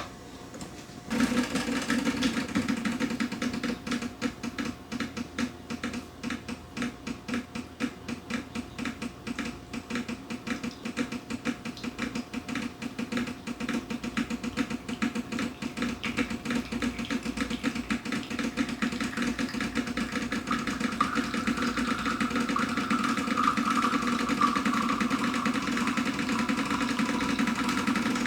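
Decent espresso machine's pump running while pulling an espresso shot. It starts about a second in with a rhythmic pulsing that evens out into a steadier hum in the second half, and a higher whine joins for a few seconds near the end.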